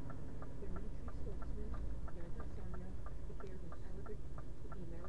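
Car turn-signal indicator ticking evenly, about three clicks a second, inside the cabin over the low rumble of the engine and road.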